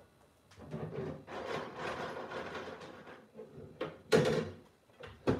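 Things being moved about inside an open side-by-side refrigerator, rustling and clattering for a few seconds, then two sharp knocks about a second apart near the end.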